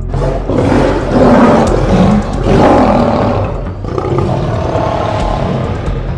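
A big cat growling and roaring: a run of loud, rough growls that starts suddenly and peaks several times in the first few seconds.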